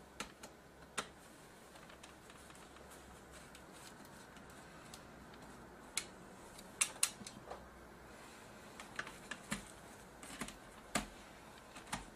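Irregular light clicks and taps, a few at a time in small clusters, from hands working loose the display cable and parts of a Dell Inspiron 6400 laptop's plastic and metal chassis.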